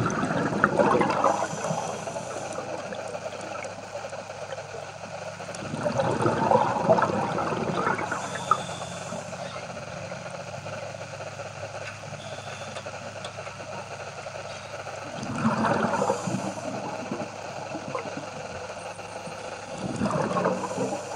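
Underwater recording of a diver's exhaled breath bubbling out of the regulator in four bursts a few seconds apart, over a steady low hum.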